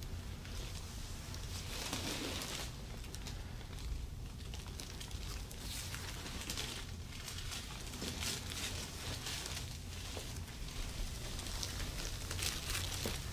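Hands rubbing and kneading over skin and clothing during a back massage: soft, irregular rustling and brushing, over a low steady hum.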